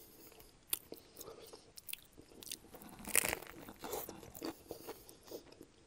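Close-miked eating sounds: a person biting and chewing a sub sandwich, with small wet mouth clicks and crunches and a louder crunching bite about three seconds in.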